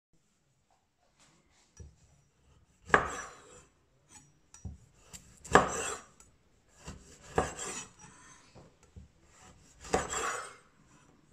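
Chef's knife slicing through a firm, dry-cured sausage and striking a bamboo cutting board. There are four sharp chops a couple of seconds apart, each with a short scraping tail, and quieter knocks and scrapes of the knife between them.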